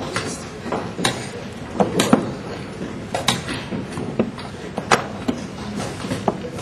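Chess pieces set down on the board and chess clock buttons struck in quick, irregular succession during a blitz game: a string of sharp knocks, the loudest about two seconds in and near five seconds, over steady background noise.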